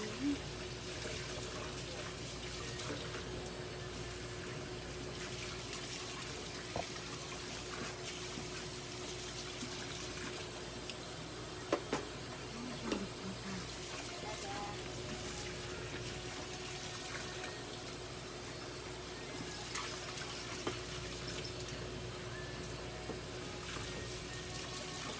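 Steady rushing hiss with a constant hum underneath. A couple of brief knocks come about twelve seconds in.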